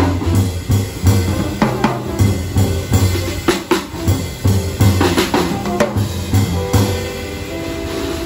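Jazz drum kit played busily, with bass drum, snare and cymbal hits tumbling over one another. About seven seconds in the hits thin out and held notes from the band take over.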